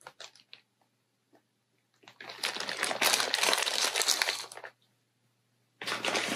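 Clear plastic wrapping on a cross-stitch kit crinkling as it is handled: a few faint clicks at first, then about two and a half seconds of crinkling and a shorter spell near the end.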